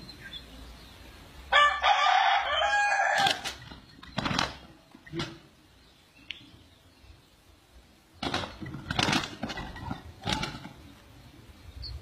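A rooster crows once, starting about one and a half seconds in, followed by several short bursts of wing flapping and scuffling, in two clusters.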